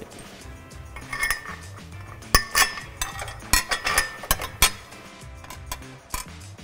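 Bolts and metal hardware clinking against the steel fold-up plate and pole as the plate is fitted: a string of sharp clinks with a short ring, most of them between about two and five seconds in, over soft background music.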